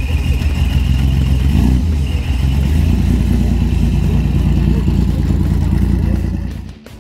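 Classic car's engine running at low revs with a deep, steady note as the car pulls slowly away. The sound drops out abruptly near the end.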